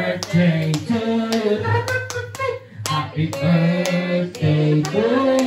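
A song with singing, and sharp hand claps keeping a steady beat of about two a second.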